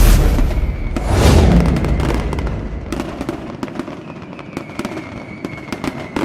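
Pyrotechnic fireworks: a loud boom at the start and a second one about a second in, then a dense crackling of small pops that slowly fades away.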